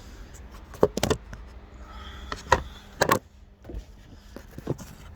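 Handling noises from a new, unused chainsaw being lifted out of its packaging and hefted in both hands: about half a dozen short knocks and clacks, spread irregularly.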